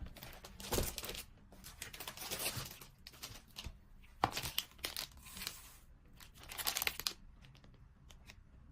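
Packaging being crinkled and torn open by hand as merchandise is unwrapped, in several rustling bursts that die down about seven seconds in.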